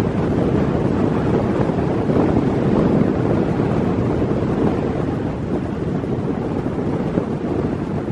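Strong wind blowing across the microphone: a steady, loud, low rushing noise.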